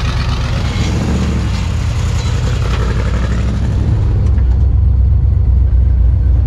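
Twin-turbo LS V8 vehicle driving, a steady low engine and road rumble with road and wind hiss over it. About four seconds in the hiss falls away and the low rumble grows louder.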